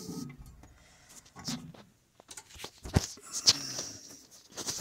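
A few light clicks and knocks as a microwave door is handled, the sharpest about three seconds in.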